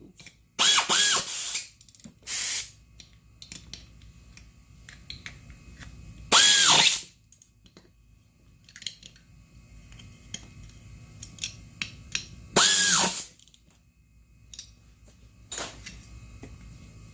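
A cordless power drill/driver pulled in short bursts, about five times. Each burst spins up and winds back down, and the ones in the middle and near the end are the longest and loudest. Light clicks and taps of tools and parts come between the bursts.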